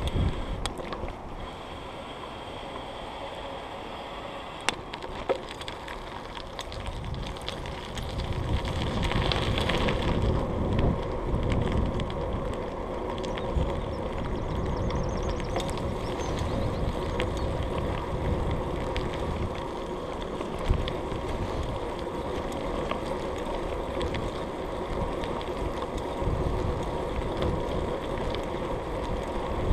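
Bicycle riding along a dirt path: steady tyre rumble with wind buffeting the camera microphone, louder from about a quarter of the way in, and a few sharp knocks as the bike goes over bumps.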